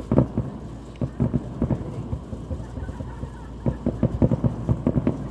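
Fireworks going off: a rapid, irregular string of low pops and thumps, several in quick succession around the start and again from about three and a half seconds in.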